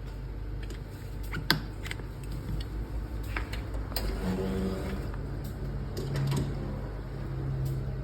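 Espresso machine pump humming steadily as a shot is extracted, starting about four seconds in. Before it there is a sharp click and a few light knocks of handling at the machine.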